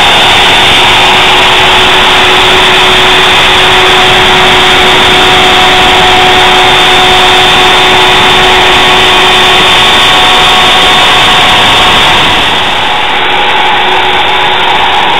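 Router spindle on a home-built Solsylva three-axis CNC router running at full speed while cutting MDF: a loud, steady whine of unchanging pitch over the hiss of the cut. It becomes a little softer and duller about twelve seconds in.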